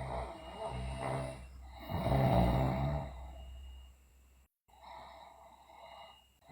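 A sleeping girl snoring loudly: two long snores, the second the loudest, then a fainter third.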